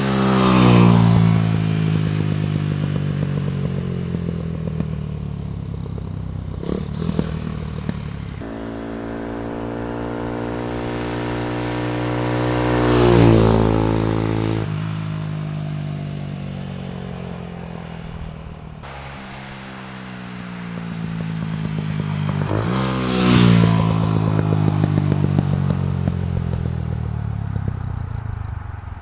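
Kymco K-Pipe 125's single-cylinder four-stroke engine running through an aftermarket Akrapovic exhaust. It swells to a loud peak and fades three times, the pitch dropping after each peak, with a few sharp pops about seven seconds in.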